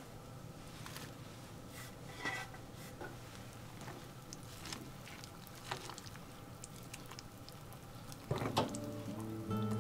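Quiet kitchen handling sounds: scattered light clicks and small taps of dishes and utensils. Acoustic guitar music comes in near the end.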